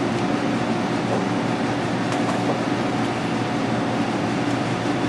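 Steady rushing hum of an air-handling system, with a low steady drone running through it; two faint clicks about two seconds in.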